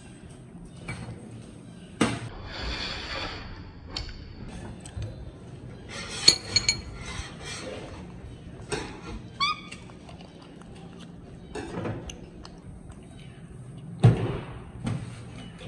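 A metal fork clinking and tapping against a ceramic plate and a stainless steel tabletop: scattered light clicks and knocks, with a sharper ringing clink about six seconds in. A brief high squeak comes around nine seconds, and a heavy thump on the table near the end is the loudest sound.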